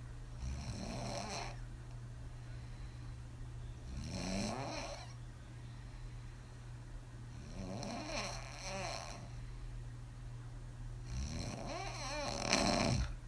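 A woman snoring hard, open-mouthed on her back: four long snores, about one every three and a half seconds, the last the loudest. A steady low hum sits underneath.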